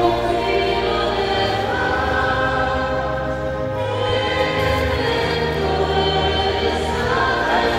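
Small church choir singing a hymn, carried over low held accompaniment notes that change every second or so.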